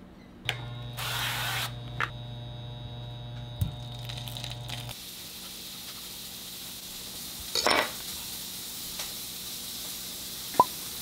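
Food sizzling in a frying pan, a steady hiss that sets in about halfway through, with a few sharp clinks of utensils against cookware. A low electric hum runs through the first half and stops as the hiss begins.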